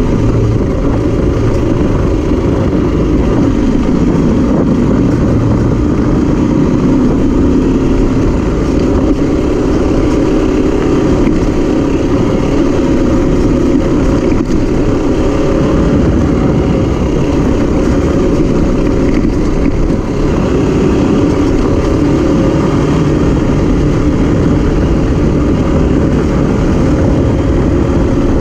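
Zongshen RX3 motorcycle's single-cylinder engine running steadily under way on a dirt road, under a loud, even rumble of road noise.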